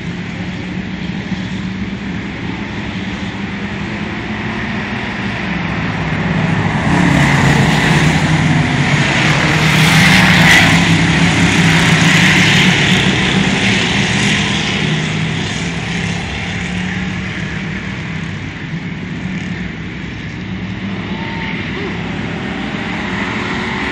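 Several dirt-track race cars' engines running together as the pack laps the oval. The sound grows louder about seven seconds in and eases off again after about fifteen seconds.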